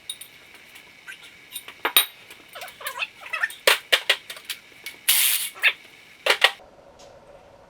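Clinks and clatter of metal tools and engine parts being handled, a series of sharp separate clicks, with a short harsh scraping rasp about five seconds in.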